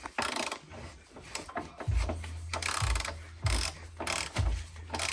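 Ratchet wrench clicking in short runs, with a low steady hum underneath from about two seconds in and a few dull knocks.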